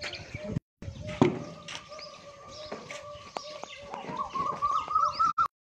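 Farmyard animal sounds: a run of short, evenly repeated chirping calls, and from about a second in a thin steady whistle-like tone that rises slightly and gets louder toward the end. A sharp knock sounds about a second in, and the sound cuts out briefly twice.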